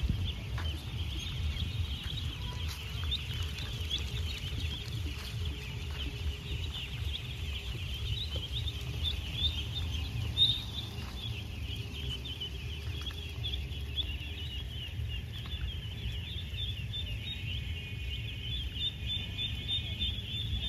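A large flock of young domestic ducks peeping and calling together: a dense, continuous chorus of many short high-pitched calls.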